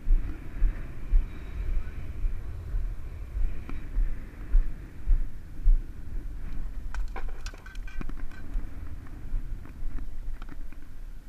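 Wind buffeting the camera microphone in irregular low thumps. About seven to eight seconds in, a short run of sharp clicks and knocks from fishing gear being handled.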